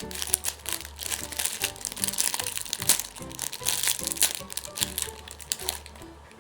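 Homemade paper-and-tape squishy crinkling and crackling as it is squeezed in the hand, over background music.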